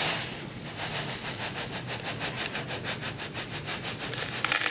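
Loose horticultural grit ballast sliding and trickling down a tilted wooden track tray: a dense rattle of many small clicks over a hiss, growing louder near the end.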